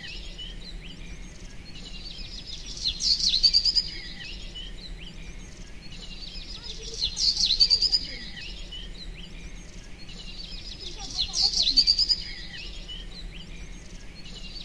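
Birdsong: the same short, high chirping phrase repeats three times, about every four seconds, with quieter chirps between.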